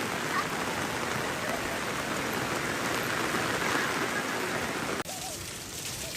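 Steady rain falling, an even hiss. About five seconds in it drops abruptly to a quieter, softer hiss.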